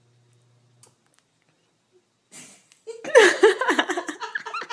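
A toddler's high-pitched voice giggling and vocalizing in short bursts, starting about three seconds in after a couple of seconds of near quiet.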